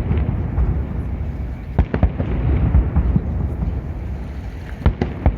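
Fireworks salute going off: a few sharp bangs, two close together about two seconds in and two more near the end, over a steady low rumble.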